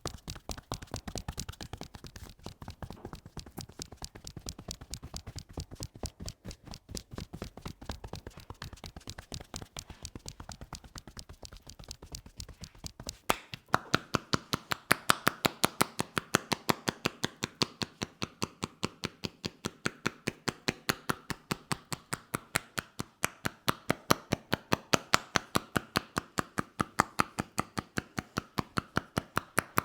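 Rapid rhythmic tapping of hands on a person's head during a head massage. Quick, softer taps for the first half, then from about halfway louder, sharper hand strikes at roughly five a second.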